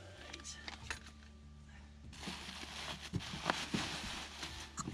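Plastic packaging crinkling and rustling as it is pulled off a new water tank, starting about two seconds in as a dense run of crackles.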